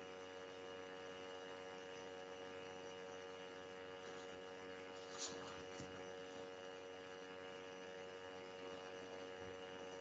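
Faint steady electrical mains hum on a video-call audio feed, made of many steady tones, with two faint short clicks a little past halfway.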